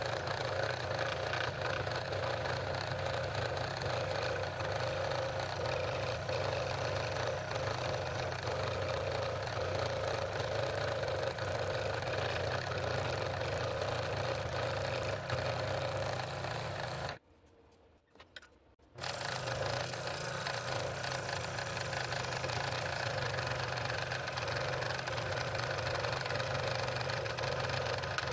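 Scroll saw running steadily, its reciprocating blade cutting a circular ring out of a thick wooden blank. The sound cuts out abruptly for about two seconds a little past the middle, then carries on unchanged.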